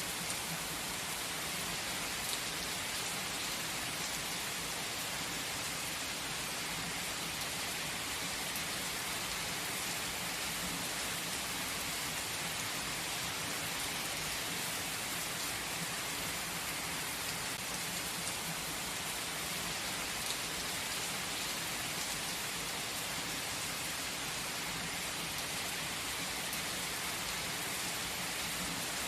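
Steady light rain falling, an even hiss of many small drops with faint individual drop ticks.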